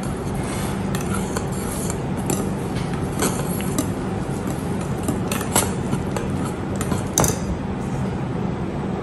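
Wire hand whisk slowly stirring flour into a thick wet batter in a glass bowl, the wires clinking irregularly against the glass, the sharpest clink about seven seconds in.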